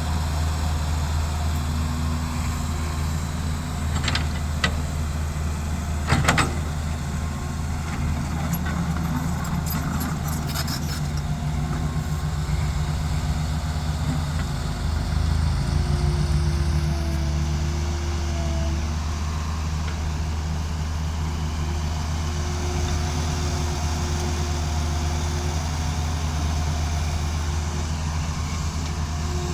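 Heavy diesel engine of a tracked excavator running steadily while loading soil, with a few sharp metal clanks about four and six seconds in. The engine note lifts briefly about halfway through.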